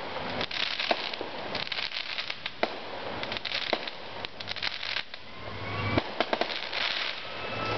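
Fireworks going off: a long run of sharp pops and crackles, many coming in quick clusters.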